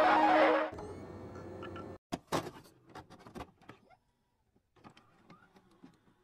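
Background guitar music cuts off abruptly under a second in. About two seconds in come a handful of sharp crackling clicks, trailing off into sparse faint ticks.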